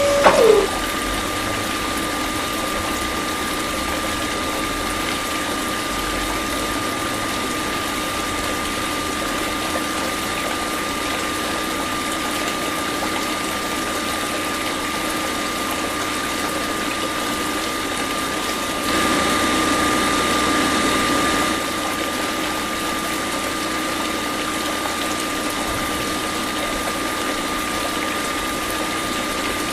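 Small electric mini water pump running steadily, a constant motor whine over the rush of water. Right at the start a second, higher whine falls in pitch and stops. About two-thirds of the way through, a louder, hissier stretch lasts about two and a half seconds.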